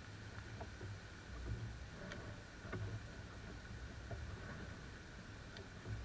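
Herd of wild boar feeding close by: intermittent low grunting and snuffling, with a few sharp ticks.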